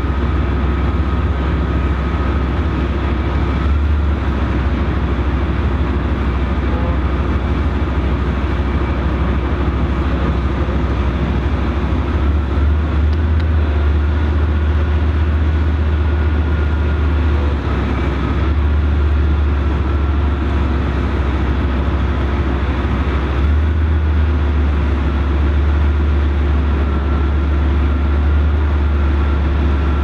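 Heavy tracked armoured vehicle's diesel engine running steadily, a strong low drone with a thin high whine above it that steps up in pitch a few times.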